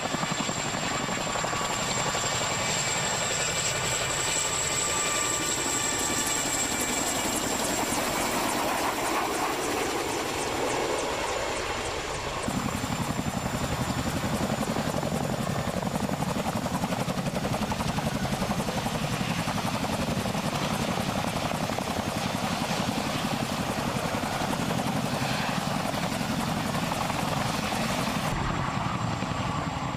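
Boeing CH-47 Chinook tandem-rotor helicopter flying low with a slung load: a steady rapid beat of the rotor blades with a high steady turbine whine. The sound shifts abruptly twice, about twelve seconds in and near the end.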